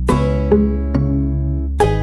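Background music: plucked acoustic guitar chords with a steady bass, a new chord struck about every half second to a second.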